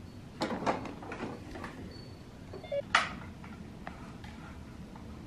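Light plastic clicks and knocks of a toddler slapping and pressing a plastic activity table toy, over a low steady rumble. A sharper knock comes about three seconds in.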